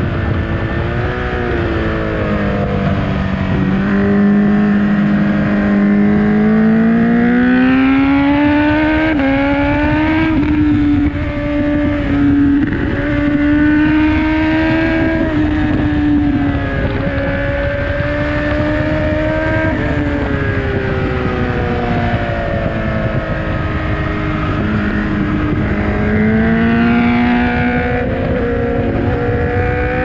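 Honda CBR1000RR Fireblade's inline-four engine through a Leo Vince exhaust, revving hard under acceleration and dropping as it slows for corners, with wind rush over the camera. The revs climb over the first ten seconds, hold, fall away in the middle, and climb again near the end.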